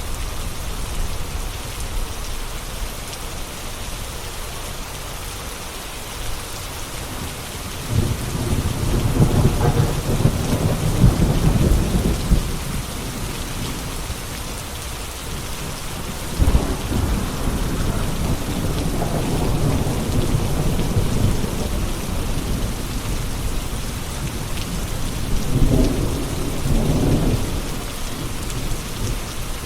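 Steady rain falling, with thunder rumbling three times: a long roll about eight seconds in, another around sixteen seconds, and a shorter one near the end.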